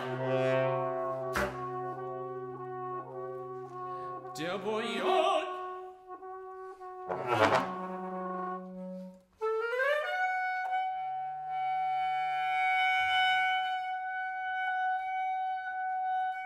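Contemporary chamber music for trumpet and trombone: long held notes, cut across by three sharp, loud accents. About ten seconds in, a note slides upward into a long high held tone over a quieter low one.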